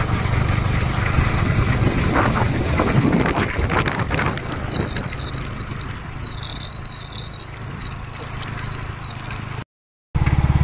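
Single-cylinder motorcycle engine running with road and wind noise, fading lower after about four seconds as the bike slows, with a high even hiss above it. Near the end the sound cuts out for a moment and comes back as a louder, steady engine running.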